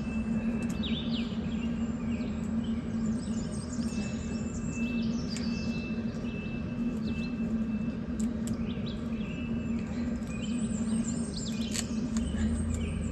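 Several birds chirping and singing, with a thin high note that comes and goes, over a steady low hum.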